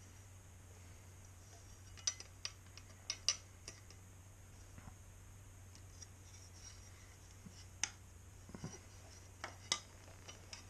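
Light metallic clicks and taps of a metal radiator brace and its hardware being handled and fitted against a motorcycle's radiator, in a few scattered clusters over a faint steady hum.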